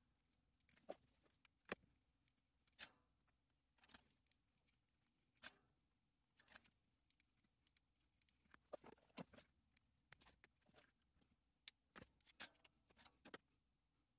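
Faint, irregular small clicks and taps of fingers handling an electric tachometer's circuit board, its wires and small parts, with a few clicks in quick succession past the middle.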